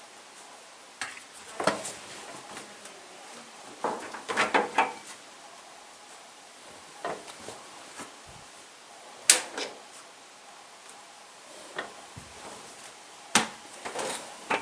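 Household objects being handled during cleaning: scattered knocks, bumps and clatters, with a cluster about four seconds in. A sharp click about nine seconds in is the loudest, and another comes near the end.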